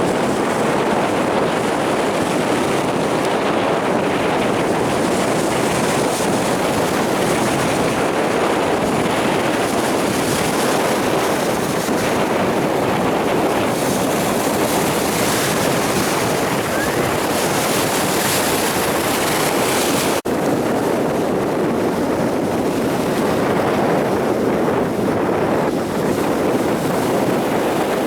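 Storm waves breaking on a beach: steady, unbroken surf noise, with wind buffeting the microphone.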